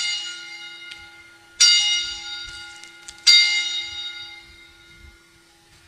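Altar bell rung three times, about a second and a half apart, each ring fading slowly; the rings mark the elevation of the consecrated host at Mass.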